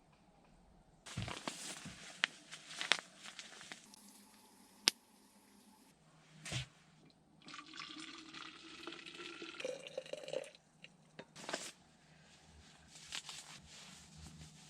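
Water poured into a container, the filling note rising in pitch as it fills, amid clicks and clatter of handling.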